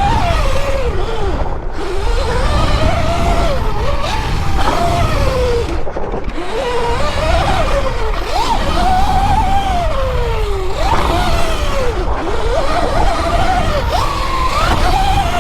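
72-volt Sur Ron electric dirt bike's motor whining while ridden, the pitch rising and falling again and again with the throttle, over a heavy rumble of wind on the microphone.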